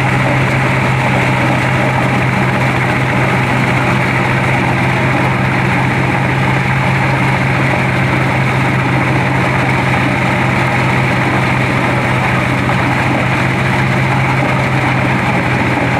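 Engine-driven double-blower corn sheller running steadily under load as cobs are fed in: a constant low hum from the small engine and drum under a dense rushing noise of threshing and blowing.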